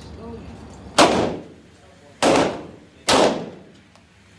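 Three handgun shots at an indoor range, each a sharp crack with a short echoing tail; the first about a second in, the next two roughly a second apart.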